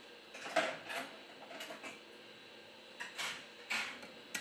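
A few faint, short plastic clicks and scrapes as the Huawei Y6P's upper antenna cover, a plastic frame with a metal plate, is lifted off the phone's mid-frame and handled.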